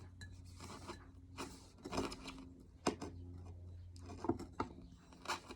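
Hands working potting soil in a plant pot: scattered short scrapes and rustles of dirt, with a faint steady low hum underneath.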